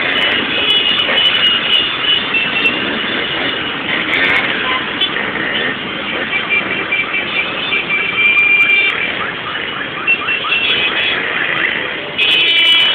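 Many motorcycles running and revving together in a street, with steady shrill tones over the engine noise and a few rising sweeps about two thirds of the way in.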